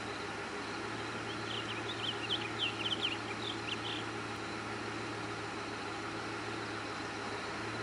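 A quick run of high, short chirping bird calls from about one and a half to four seconds in, over a steady low hum and hiss.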